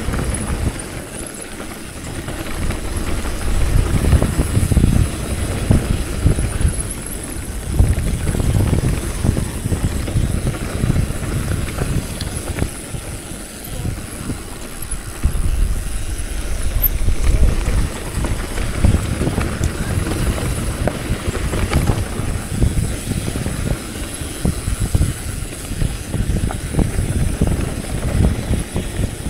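Mountain bike descending a rough trail: a loud, uneven rumble of tyres over rocky ground with constant clattering and knocks from the bike, and wind on the microphone.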